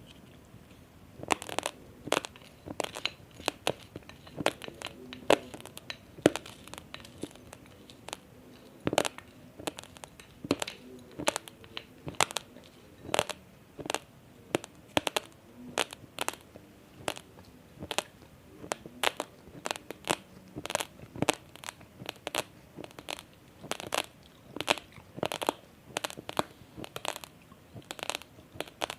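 Raw basmati rice grains being chewed, cracking and crunching between the teeth in sharp irregular crunches, about two a second, starting about a second in.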